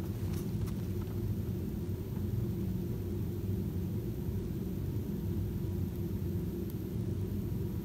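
Steady low rumble, with a couple of faint light clicks about half a second in.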